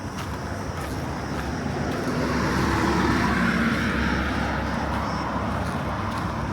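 A motor vehicle passing close by, swelling to a peak about three seconds in and then fading, over a steady high buzz of cicadas.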